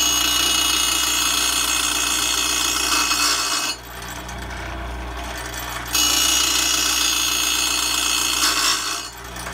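Belsaw 10452 saw sharpener's gumming wheel grinding the gullets of a 32-inch circular saw blade's steel teeth, a steady harsh grinding hiss. It grinds for about three and a half seconds, eases off to the quieter running of the grinder motor for about two seconds, then grinds again for about three seconds before easing off near the end.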